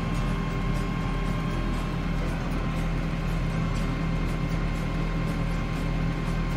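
New Holland TS tractor's diesel engine running steadily at about 1,200 rpm, heard inside the cab, with a faint quick regular ticking over it, while the Electro Shift gearbox's C4 clutch pack is calibrated.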